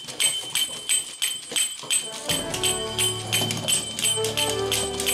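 Battery-operated toy monkey clashing its small metal cymbals in a steady rhythm, about three clashes a second, each leaving a bright ring. A little over two seconds in, a tinny tune with a bass line starts up alongside the clashing.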